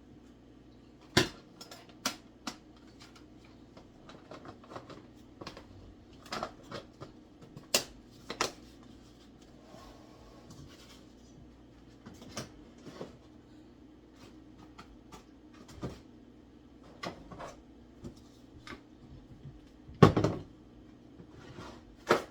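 Scattered kitchen clatter: dishes, containers and utensils knocked and set down, with about a dozen sharp separate knocks, the loudest near the end, over a faint steady hum.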